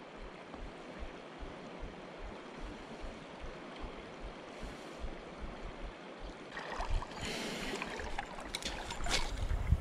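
Steady rush of a shallow flowing river. From about seven seconds in come louder rustling and a few sharp clicks.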